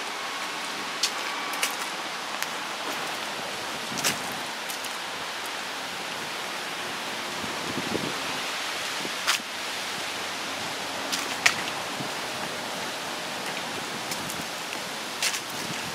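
Steady hiss of light rain, with irregular sharp ticks scattered through it.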